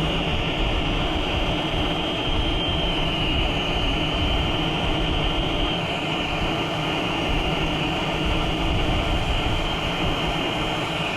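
Brazing torch flame burning steadily: a continuous rushing hiss with a thin high whistle riding on top.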